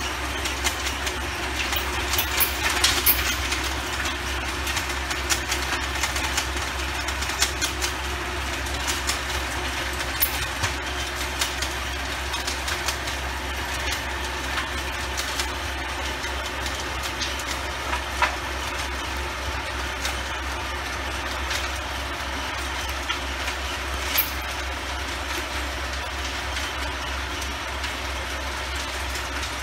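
Antonio Carraro TRX 9900 tractor running with its rotavator churning greenhouse soil: a steady engine drone under irregular sharp clicks and clatter from the tiller.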